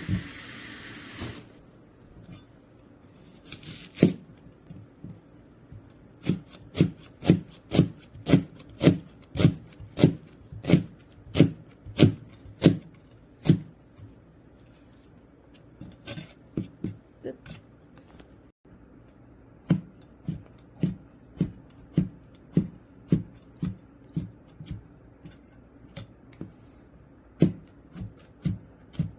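Knife chopping food on a wooden cutting board: steady strokes about two a second, in runs broken by short pauses.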